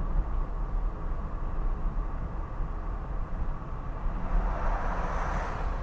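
Steady road and engine noise inside a car cabin at highway speed, a low rumble with tyre hiss. About four seconds in, a rushing noise swells as the car passes close alongside a large box truck.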